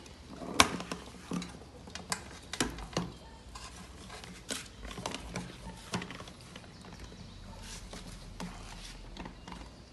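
Irregular clicks and knocks of a plastic blender jar and its lid being handled and fitted together, the sharpest knock about half a second in; the blender motor is not running.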